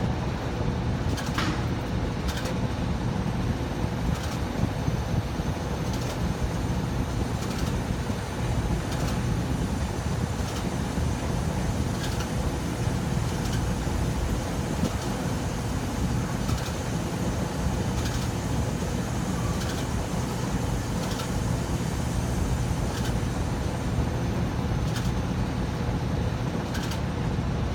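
Rheem air-conditioning blower unit running, a steady low hum and rumble with a faint steady tone and light ticks about once a second.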